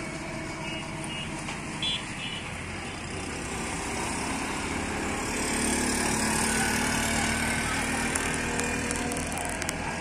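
A motor vehicle's engine running, a steady low hum that grows louder about halfway through and eases slightly near the end.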